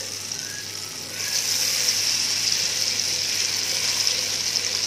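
Battered sweet potato frying in a pan of hot oil: a steady sizzle that gets louder about a second in as more egg batter goes into the oil.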